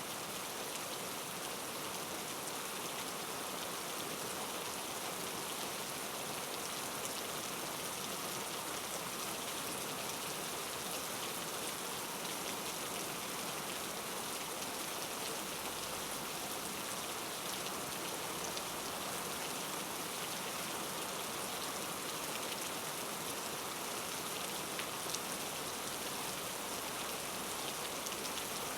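Steady rain falling: an even hiss of drops, unchanging throughout, with a few faint scattered ticks of single drops.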